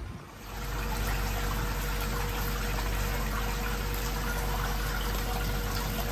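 Live seafood tank's water pump and running seawater: a steady rushing, trickling noise with a low hum under it, setting in about half a second in.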